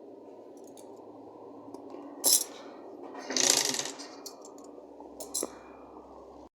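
Work at an industrial sewing machine that has stopped stitching: a steady low hum, a sharp metallic click about two seconds in, a short rasping rustle a second later as the upholstery is handled, and two more light clicks.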